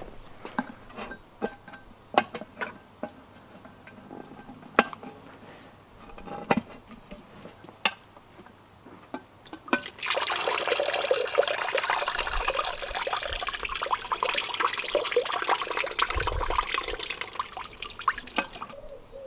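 A few sharp metal clicks and clinks as a stainless steel camping pot with a lid is handled, then, about halfway through, a steady stream of water pouring out through the lid's strainer holes for about eight seconds: the tagliatelle's cooking water being drained off.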